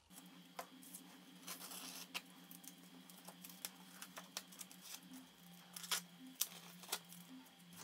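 Masking tape being peeled slowly off dried painted paper: faint crackling with scattered small clicks, over a steady low hum.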